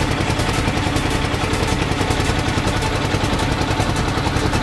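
A small fishing boat's engine running steadily under way, with a rapid, even pulsing beat.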